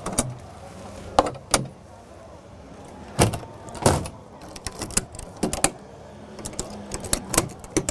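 Clicks and clacks of an EC120 helicopter's side-panel latches and access flap being worked by hand to close them: about a dozen sharp snaps in irregular succession, the loudest pair about three to four seconds in.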